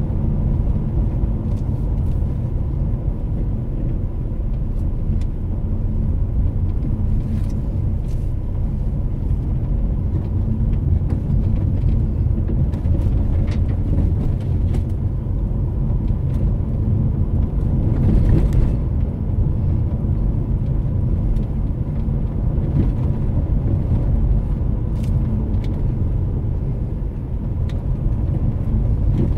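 Car cabin noise while driving: a steady low rumble of engine and tyres on the road, with faint scattered clicks and a slightly louder stretch about eighteen seconds in.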